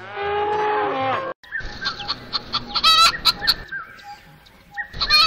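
A calf mooing, a drawn-out call that falls in pitch and cuts off abruptly a little over a second in. Then chickens clucking in short repeated calls, with a harsh squawk about three seconds in.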